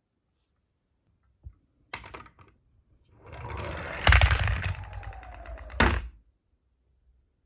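A die-cast Tomica police minicar rolling and rattling along a toy slope for about three seconds, with a hard knock about four seconds in and another just before the rattling stops. Two lighter clicks come before it sets off.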